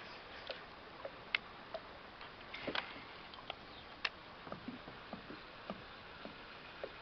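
Small irregular clicks and plops of river water dripping and lapping against a plastic kayak's hull, a few sharper knocks among them, over a steady low hiss of moving water.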